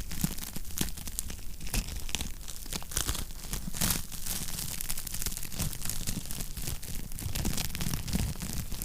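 Wood fire burning in a fireplace, crackling with many small irregular pops over a low rumble.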